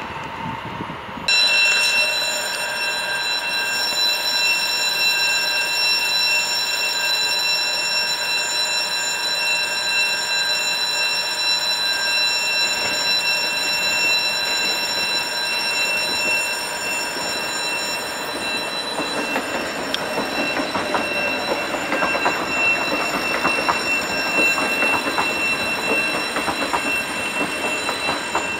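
Electric multiple-unit commuter train approaching and passing close by. A steady high-pitched whine of several tones runs throughout, and rail rumble with quick clicks over the track joints builds over the last ten seconds as the train draws level. The sound jumps up suddenly about a second in.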